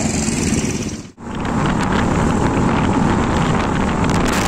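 Motorcycle engine running near the microphone. About a second in, the sound breaks off abruptly. It is followed by the steady rush of wind on the microphone of a motorcycle riding at speed, with the engine running underneath.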